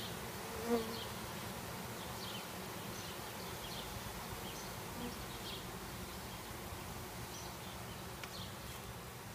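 Honeybees from a freshly installed package buzzing around an open hive, a steady hum of many wings, with one brief louder buzz under a second in.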